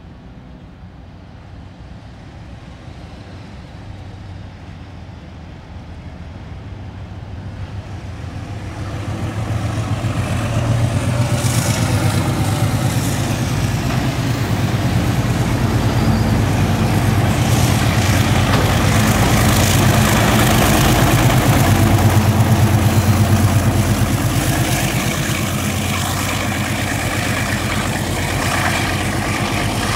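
Diesel-electric locomotives, 48 class among them, hauling a ballast train past at close range: the engine drone builds over about the first ten seconds as they approach, then stays loud as the locomotives and the first wagons go by, easing slightly near the end.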